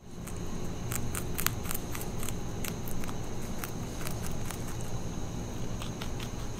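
Baby eastern cottontail rabbit chewing a celery stalk: quick, irregular crisp crunches, coming thick for the first few seconds, then thinning out, with a few more near the end.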